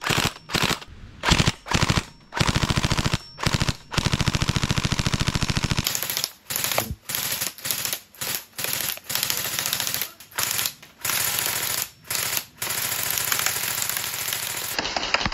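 Replica HK416D toy rifle firing on full auto: fast runs of rapid shots, some short, some about two seconds long, with brief pauses between.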